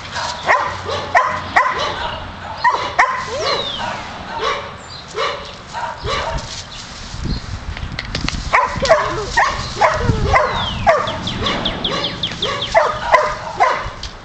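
Dogs barking excitedly in play: short sharp barks in quick runs, with a few higher yips and falling yelps.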